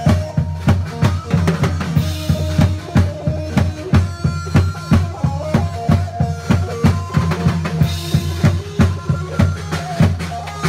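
Live band music led by a drum kit: bass drum and snare strokes in a fast, even beat over electronic keyboard with steady bass notes and a held melody, and a cymbal wash about two seconds in and again near the end.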